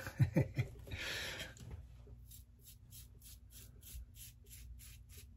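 Aylsworth DrakKant stainless steel open-comb safety razor scraping through lathered stubble in short strokes, about three a second, on the last pass against the grain. A short breathy hiss comes about a second in, before the strokes start.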